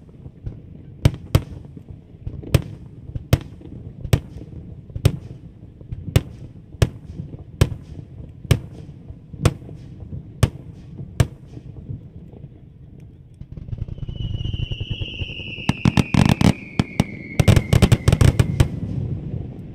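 Aerial firework shells bursting in a run of single sharp reports, about one a second. Then a rumbling volley of a starmine sets in, with two dense clusters of crackling bangs and a long whistle falling in pitch.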